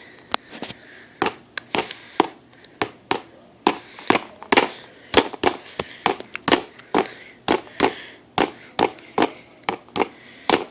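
A long run of sharp, unevenly spaced clicks, about three a second.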